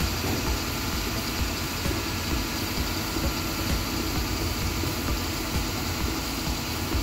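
Mercedes Econic refuse truck's diesel engine idling steadily while its hydraulics lift and tip the Faun Combipress front pod to empty it into the body.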